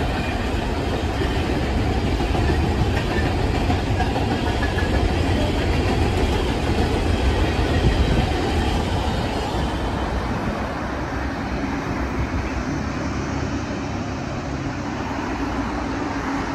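Freight train of open-top hopper cars rolling past: a steady rumble and clatter of steel wheels on the rails. It grows fainter in the second half as the end of the train passes and moves off.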